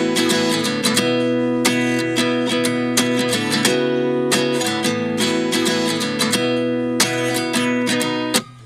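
Background music: a guitar strummed in repeated chords, stopping shortly before the end.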